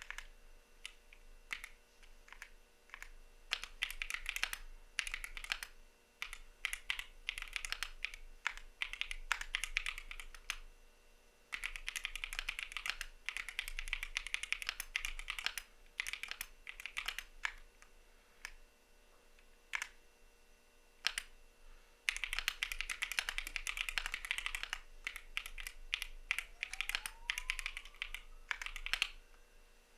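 Typing on a CIDOO V75 mechanical keyboard with Matte switches: fast runs of keystrokes in several bursts, with brief pauses holding only a few single key presses.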